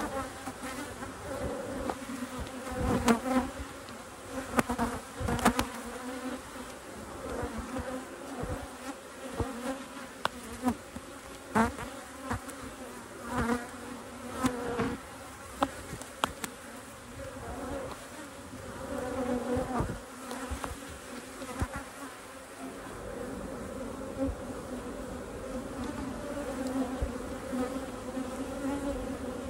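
Honeybees buzzing around an open hive, a steady hum with a clear pitch, interrupted here and there by short knocks and clicks.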